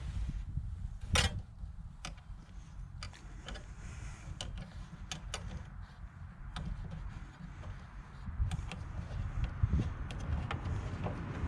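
Scattered sharp metal clicks and taps of a 10mm wrench working on a Jeep's factory antenna mount, the loudest about a second in, over a low rumble of handling noise.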